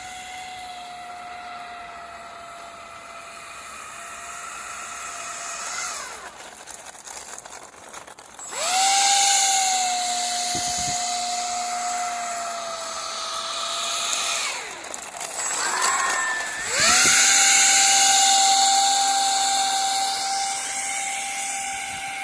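Small electric motor of a 3D-printed RC car whining at a steady pitch while it drives. It winds down to a stop about a quarter of the way in and spins back up soon after, then winds down and spins up again about two-thirds of the way through.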